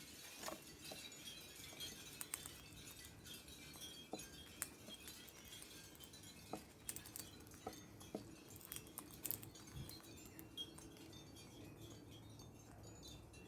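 Faint, scattered light clinks and tinkles at irregular moments, some ringing briefly, over a low steady hum.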